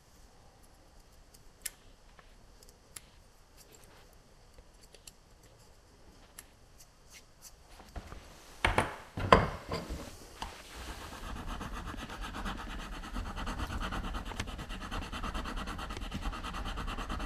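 Scalpel and craft knife cutting and scraping the dried cane of a friscalettu (Sicilian cane flute) as the labium is roughed out: faint scattered clicks at first, a few louder knocks about nine seconds in, then a steadier, louder scraping from about eleven seconds.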